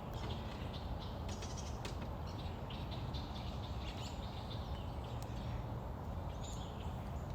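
Faint, steady outdoor background noise with a few soft, short bird-like chirps scattered through it.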